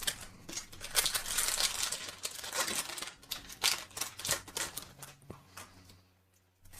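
Foil Pokémon booster pack wrapper crinkling and tearing as it is opened, with scratchy rustling of the cards being handled.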